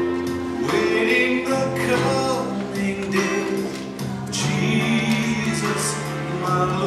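Music: an Easter song with singing voices and instrumental accompaniment, holding long sustained notes, which the puppets perform to.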